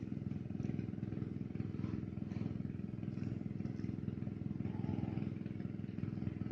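A small engine running at a steady, even speed, a constant low drone with no revving.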